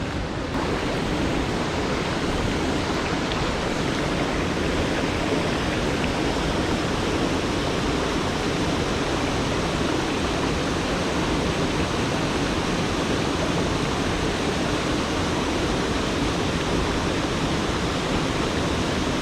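Small mountain creek rushing over rocks: a steady, loud rush of running water.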